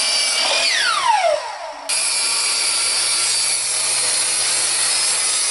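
Miter saw motor whining at speed, then spinning down with a falling whine about a second in. From about two seconds in, a portable table saw runs steadily as a small white oak log is ripped through its blade.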